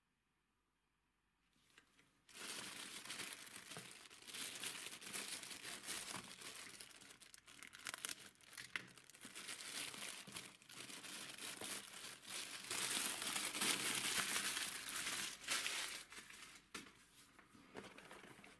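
Grey plastic postal bag crinkling and tearing as it is pulled open by hand, starting about two seconds in and loudest about three quarters through.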